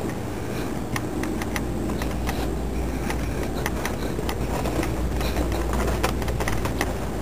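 Handling and movement noise of a handheld camera carried at a walk: a steady low rumble on the microphone with irregular small clicks and taps from handling and footsteps.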